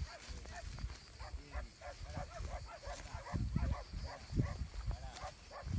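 Dog whining and yelping in a quick run of short, high, rising-and-falling cries, with a low rumbling underneath.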